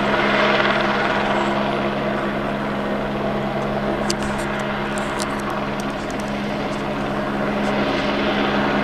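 Light helicopter in slow flight while towing a pulling line for power-line stringing, its turbine and rotor making a steady, loud drone. The level dips slightly a little past halfway and rises again near the end.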